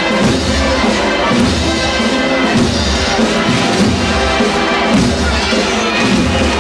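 Brass band playing a Holy Week processional march.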